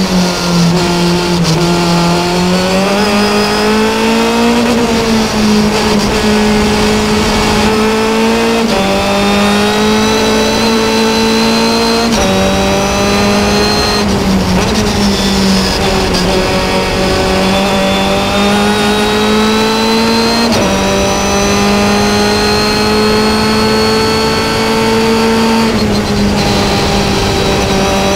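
Onboard sound of a Carbir DS3 Formula Continental's 2-litre Ford Zetec four-cylinder engine at racing speed. The engine pitch climbs slowly through each gear and jumps sharply at the gear changes, several times over, with wind rushing past.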